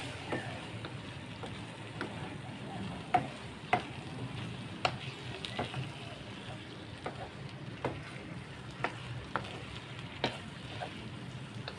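Mee goreng noodles with egg stir-frying in a pan: a steady sizzle under irregular clicks and scrapes of the spatula against the pan as the noodles are tossed.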